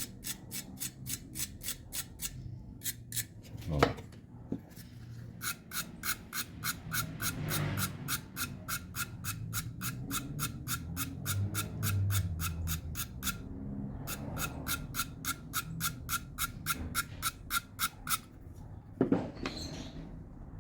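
A small brush scrubbing back and forth over a TV loudspeaker's terminals in quick, even strokes, about four or five a second, in bouts with short pauses, clearing dirt built up on the contacts. A single knock comes about four seconds in.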